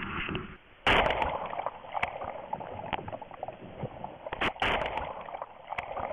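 Water splashing and sloshing in irregular bursts, with a loud sudden splash about a second in and smaller splashes after it.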